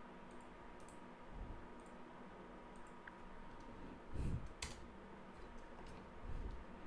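Faint computer mouse clicks and keyboard keystrokes, scattered and sparse, with a sharper click a little over four and a half seconds in and low thumps about four seconds in and near the end.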